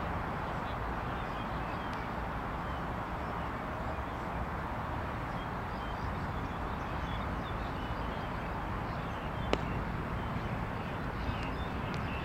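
Steady outdoor background noise with faint chirping, and a single sharp crack about nine and a half seconds in.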